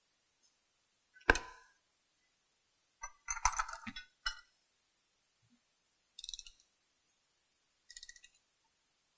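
Hand wrenches working the steel cross-connection bolts of a pipe coupling's flange clamps: a sharp metal clink about a second in, a cluster of clanks and clicks around three to four seconds, then two short runs of ratchet clicking as the bolts are tightened.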